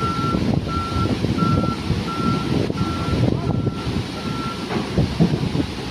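Reversing alarm of a truck or heavy machine beeping at a single pitch, about seven beeps roughly three quarters of a second apart, stopping near the end, over a loud low rumble.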